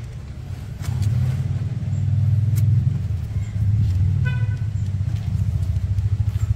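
A motor vehicle's engine running with a low, pulsing rumble that grows louder about a second in. A short horn toot sounds about four seconds in.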